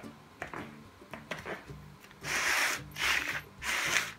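Footsteps scuffing on a concrete yard: three long, even scrapes in the second half, about one every 0.7 seconds.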